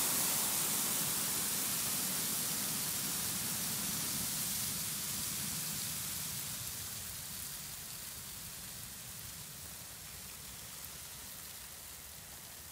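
Water spraying with a steady hiss from a leak in a hose. The supply is already shut off, so only residual pressure in the line drives the jet, and the hiss fades gradually as that pressure drops.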